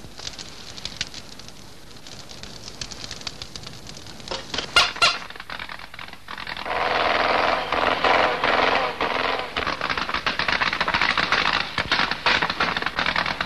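A fire crackles softly in a stove, with a few sharp snaps about five seconds in. Then, from about seven seconds, the engine of an old open touring car rattles loudly as it drives.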